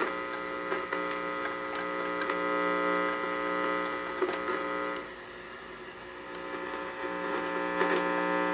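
Steady electrical hum-buzz with many overtones, with scattered small clicks and knocks from handling the test leads. About five seconds in, the upper, brighter part of the buzz drops away and the sound goes quieter; it comes back near the end.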